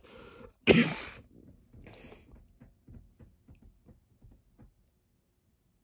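A short, loud breathy voice sound, like a laugh or cough, about a second in, followed by a run of faint, irregular soft clicks that stop near the end.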